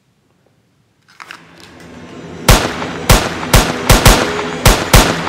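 Film sound-effect handgun shots fired in rapid succession, about seven sharp loud bangs roughly half a second apart, starting about two and a half seconds in. Before them a low rumble swells up from near silence.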